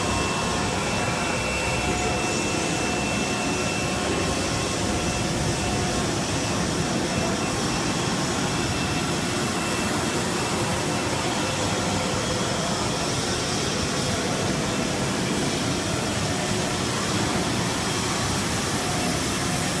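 Steady, even machinery noise of a running RTP (reinforced thermoplastic pipe) production line, with a few faint steady whines over it.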